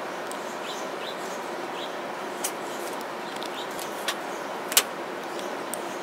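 House finches chirping, short repeated notes mostly in the first half, over a steady hiss. A few sharp clicks cut in, the loudest about three quarters of the way through.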